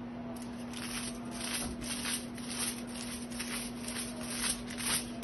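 Quick brushing strokes, about two to three a second, from a tint brush applying highlighting product to hair laid on foils. The strokes start about half a second in.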